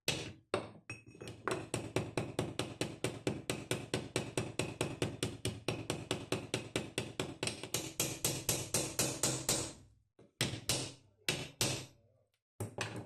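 Hammer peening over a rivet head with quick, even taps, about five a second. A few slower single blows come near the end.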